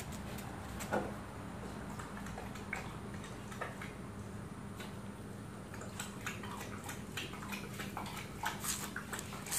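A dog lapping water from a bowl: quick wet clicks that come thicker in the second half, over a steady low hum.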